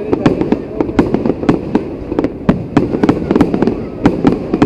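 Aerial fireworks exploding in quick, irregular succession: a dense run of sharp bangs and crackles, several a second.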